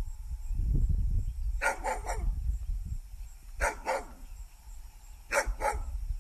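A dog barking in short groups: three quick barks about a second and a half in, two more around the four-second mark, and two near the end. A low rumbling noise comes in the first couple of seconds.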